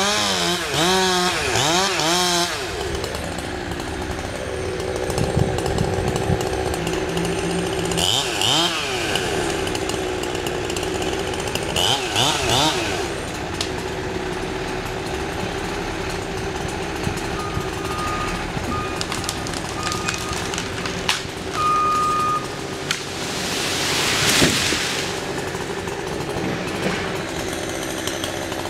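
Chainsaw running and revving as it cuts through the back-leaning cottonwood tree. Near the end comes a loud crash as the tree comes down.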